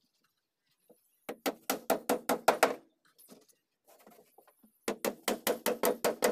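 Hammer driving nails into the plywood panels of a bed box: a quick run of about eight ringing blows, a pause, then another fast run starting near the end.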